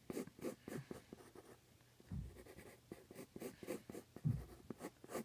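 Pencil scratching on paper in quick, repeated short strokes as lines are drawn, fairly faint, with two soft low thuds about two and four seconds in.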